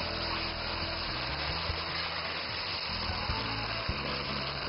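Background music with sustained low notes that change every second or so, and a few light clicks in between.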